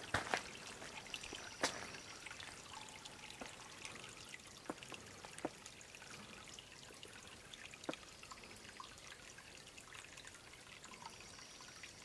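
Faint trickle of a thin, low-flow waterfall running down a rock face, with scattered drips and a few sharper clicks in the first two seconds.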